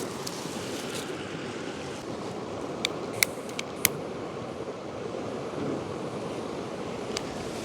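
Mountain river rushing steadily. A few sharp clicks come about three to four seconds in.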